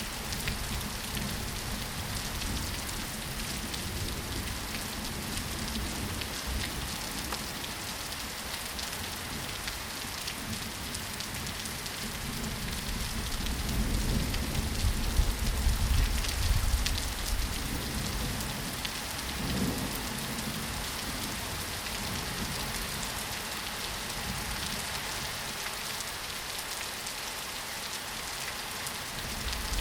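Steady rain falling, a dense hiss of drops with fine pattering. A low rumble swells up about halfway through and fades a few seconds later, with a shorter one soon after.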